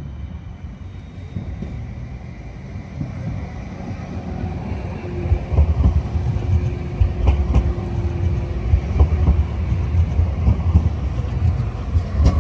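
Articulated low-floor EVAG city tram approaching and passing close by, its wheels rumbling on the rails and growing louder about halfway through. A few sharp clacks from the wheels over the track and a thin steady tone for a few seconds as it goes past.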